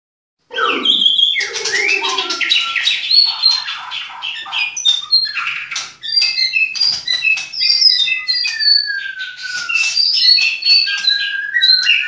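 White-rumped shama (murai batu) singing a loud, fast, varied song of whistles, chatter and buzzy notes, with a long slowly falling whistle past the middle and a held steady note near the end.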